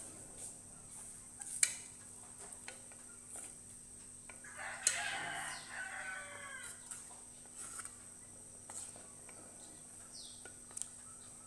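Wooden spatulas stirring a pot of mung bean soup, clicking and knocking against the pot now and then. A rooster crows once about five seconds in, one falling call of about a second and a half, the loudest sound here.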